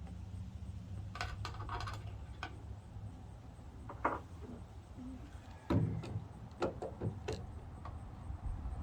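Metal parts of a tailgate assist clicking and knocking as its bottom mount is worked into the hole in the side of the tailgate: scattered light clinks and taps, the loudest knock a little past the middle.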